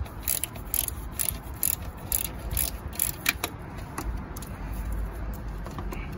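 Hand ratchet wrench clicking, about two clicks a second, as a bolt on the A/C condenser fan is turned out; the clicking stops a little over three seconds in, followed by low handling noise.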